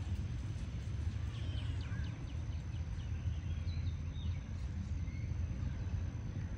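Outdoor background: a steady low rumble, with faint short bird-like chirps in a quick run about a second and a half in and again a little past the middle.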